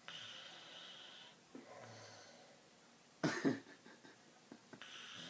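A man snoring in his sleep: a long hissing breath, then a short, loud, rough snort about three seconds in, then another hissing breath near the end.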